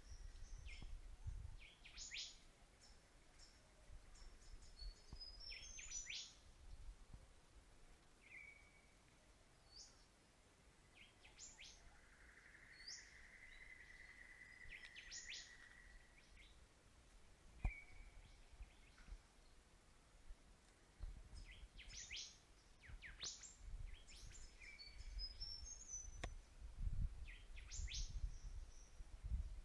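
Birds chirping faintly: short downward-sweeping chirps, a few quick descending trills and one longer steady note near the middle. A few low thumps come through, the sharpest about two-thirds of the way in and more near the end.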